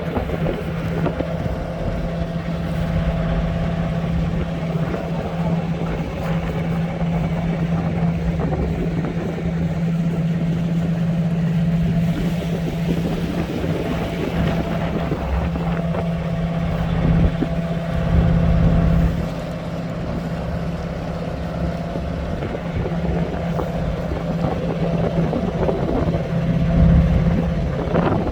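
Boat engine running steadily under way, a constant droning hum. It swells louder briefly about two-thirds of the way through and again near the end.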